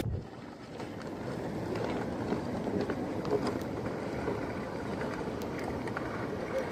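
Wooden plank sledge dragged over stony, grassy ground: a steady rough scraping with scattered small clicks of stones.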